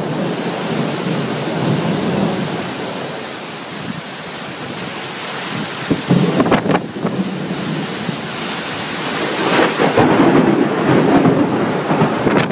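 Thunder rumbling over steady rain during a thunderstorm. There are a couple of sharp crackles about six and a half seconds in, and the rumble swells again near the end.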